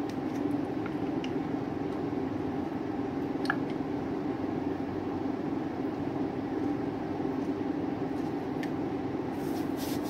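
Avocado chunks set by hand into a plastic chopper bowl, giving a few faint soft taps and clicks over a steady background hum.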